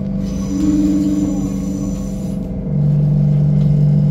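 Suburban electric train heard from inside the carriage, its traction motors giving a steady hum in several fixed pitches; about three seconds in a lower hum joins and the sound gets louder.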